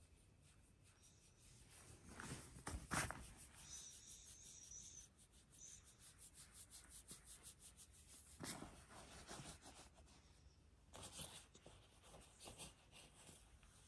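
Faint rubbing and rustling of fur and mat fabric as a Shiba Inu lying on its back is stroked, with a run of fine rapid ticks and a few louder brushing sounds.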